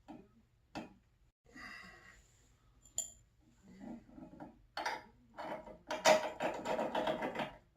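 Metal parts and tools being handled on a workbench: a few single clicks and a brief scrape, then a run of metallic clinking and clattering about five seconds in.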